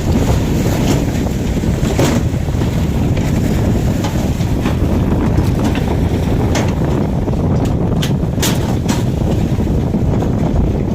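Strong wind buffeting the microphone with a loud, steady rumble, broken by scattered short knocks and clicks, several of them in the second half.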